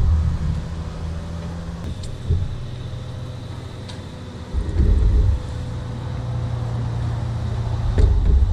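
Yamaha WaveRunner personal watercraft engine running steadily under way, with a louder low rumble about halfway through.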